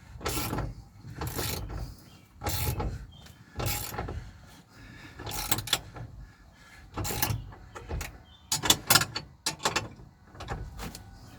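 Hand ratchet wrench clicking through repeated strokes, about one a second with a quicker run near the end, as a nut is tightened down.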